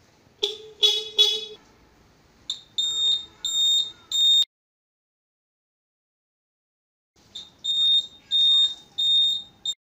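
Motorcycle's electric horn sounding in three short honks, then the high-pitched beep of a turn-signal buzzer, about one and a half beeps a second, keeping time with the flashing indicators. This shows the repaired 12-volt lead-acid battery powering the horn and indicators.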